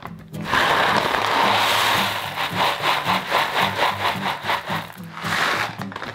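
Decaffeinated green coffee beans poured from a paper bag into a stainless-steel mesh tray. A steady rush of beans for about two seconds turns into a quick rattle of single beans hitting the mesh, with another short rush near the end.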